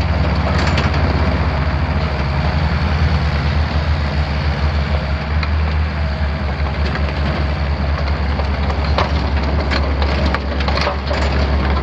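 Mini excavator's four-cylinder diesel engine running steadily, with scattered sharp cracks and crunches that come thicker near the end.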